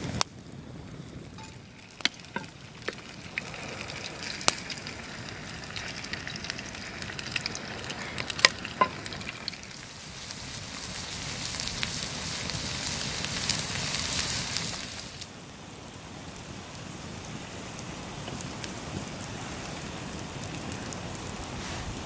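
A large potato pancake of grated potato frying in oil in a pan over a campfire, sizzling steadily with several sharp pops in the first half. The sizzle swells louder about halfway through, then drops back a few seconds later.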